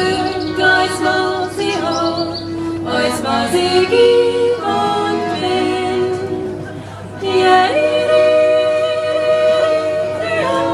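A vocal group singing a cappella in several-part harmony, holding long chords, with a short dip about two-thirds of the way through.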